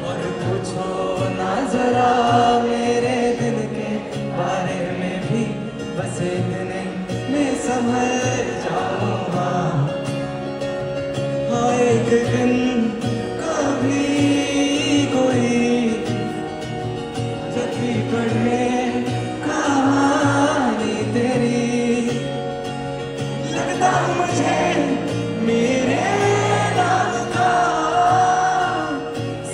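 Live song: a male singer with acoustic guitar, and many voices in the crowd singing along.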